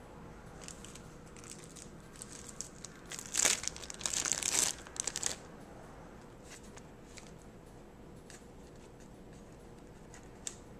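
Crinkling and rustling as pre-made tamales are handled and laid in a disposable aluminium foil pan, with one loud crinkly burst lasting about two seconds, starting about three seconds in, and faint scattered ticks of handling around it.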